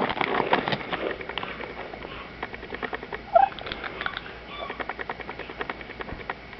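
Chicken pecking at and crunching pieces of sugary cereal: a run of rapid, irregular sharp clicks, with one short squeak about halfway through.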